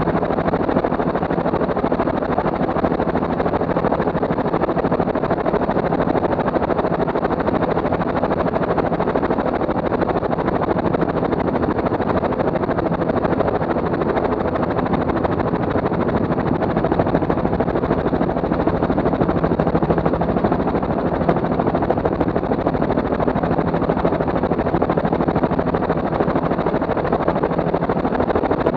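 Steady helicopter engine and rotor noise, an unbroken mechanical din with a constant hum of engine tones underneath.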